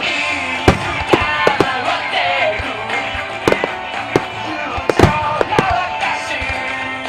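Music starmine fireworks: a quick, uneven series of sharp firework bangs, the loudest about five seconds in, over a song with a melody played through loudspeakers.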